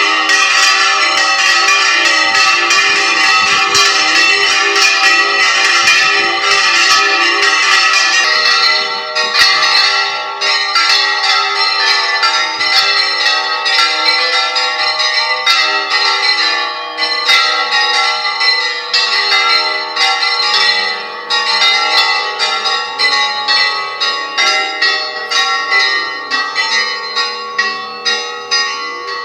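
Five church bells ringing together, struck again and again in a dense peal. After about nine seconds the ringing thins into separate strikes, about two a second, each ringing out and fading.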